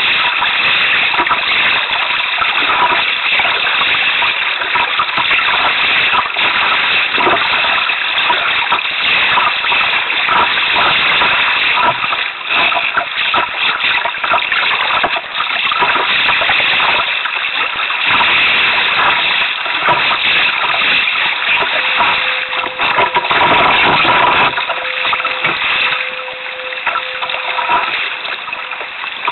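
Sea water splashing and sloshing against a paddled canoe's hull on choppy water, a loud, uneven rushing that rises and falls with the waves and strokes.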